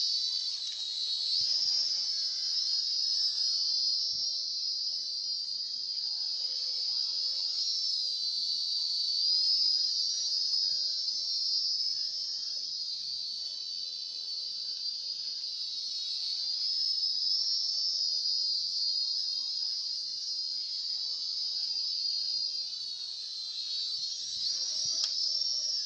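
Small toy quadcopter drone's propellers and motors whining high-pitched in flight, the pitch drifting up and down as the throttle changes.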